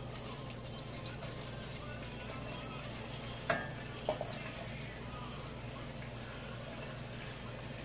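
Sliced onions going into a pot of hot melted butter and olive oil, with a quiet, steady sizzle over a low hum. Two light knocks come about three and a half and four seconds in.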